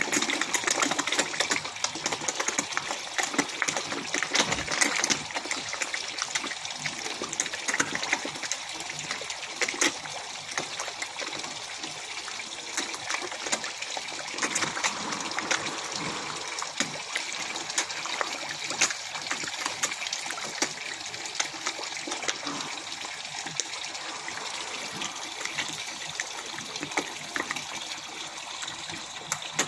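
A crowd of koi thrashing and splashing at the water's surface as they feed, with many quick irregular splashes and smacks of mouths and fins over a constant wash of churned water.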